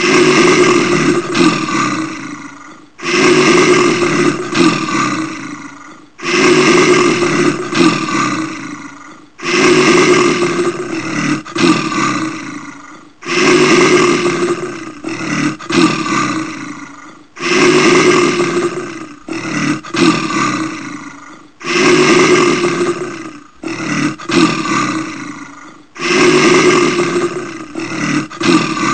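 Brown bear roaring over and over: about eight deep roars, each starting loud and fading over roughly three seconds, a new one every three to four seconds.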